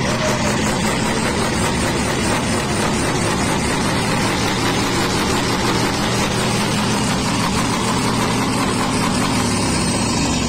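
Truck's diesel engine held steadily at high revs, sounding through a straight side exhaust pipe with three tips, as its noise level is measured at the pipe.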